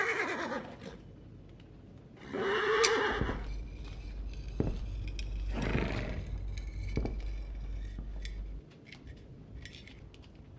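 Foley for a fight scene: three short pitched cries that bend downward, one at the start, one about two and a half seconds in and one near six seconds, over a low rumble. Sharp clicks and light metallic clinks are scattered through, with faint ticking near the end.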